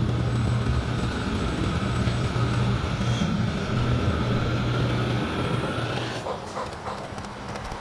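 HO scale model train running along its track, heard from a camera riding on one of its cars: a steady rumble and hum of the wheels and motor. About six seconds in, as the train leaves a tunnel tube, the sound gets quieter and a few clicks come through.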